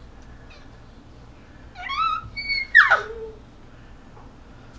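A toddler's short high-pitched squeals: a rising squeal about two seconds in, then a sharp squeal that sweeps steeply down in pitch.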